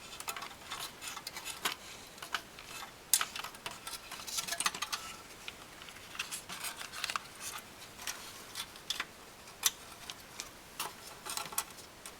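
Irregular small clicks, ticks and scrapes of plastic and wire being handled: wire harness connectors being fed through the holes in a car radio's chassis while the faceplate is refitted.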